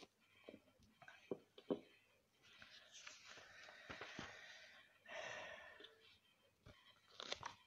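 Faint breathy sounds from a person's mouth, in two soft stretches, with a few light clicks in the first two seconds.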